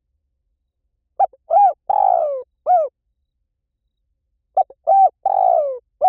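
Spotted dove cooing: two phrases of four coos each, one about a second in and another near the end. The third coo of each phrase is drawn out and falls in pitch.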